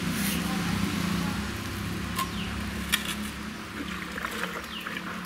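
Outdoor background with a steady low hum, a sharp click about three seconds in, and a few faint chicken clucks.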